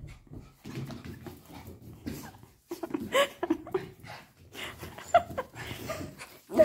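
Small dog whimpering in a few short, sliding whines, amid scuffling and clicking of movement.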